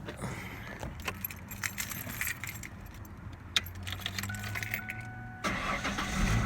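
Keys jangling and clicking at the ignition of a 2000 Ford Mustang, with a brief warning chime, then the engine cranking and catching near the end.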